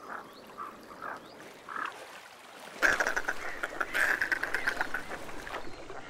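Harsh croaking animal calls: a few short separate calls, then a rapid rattling series of croaks lasting nearly three seconds from about halfway through.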